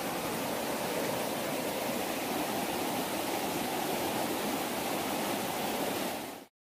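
Steady rush of flowing water from a stream, an even hiss with no break, cutting off suddenly near the end.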